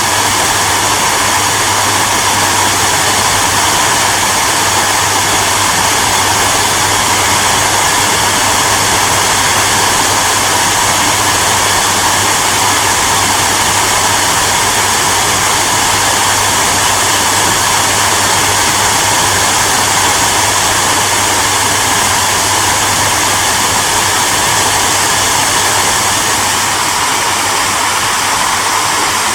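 Hair dryer running continuously: a steady rushing blow of air over a low motor hum, unchanging throughout.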